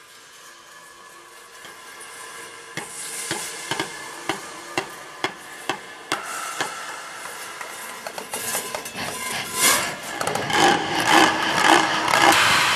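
Sharp knocks at about two a second, starting a few seconds in, then turning into a faster, louder clatter with rasping and scraping near the end.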